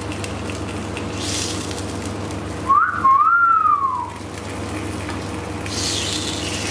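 A short whistled note, a quick rise and then a slow rise and fall, about three seconds in. Under it, pepperoni slices sizzle on a hot electric grill with a steady low hum.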